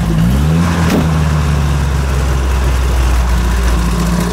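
Off-road 4x4's engine running hard under load while its front wheel spins in deep mud, churning and flinging mud. The engine note shifts about half a second in, then holds steady and low.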